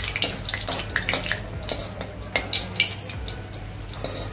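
Cumin seeds, a bay leaf and a cinnamon piece frying in hot oil, sizzling with many irregular crackles and pops while a ladle stirs them.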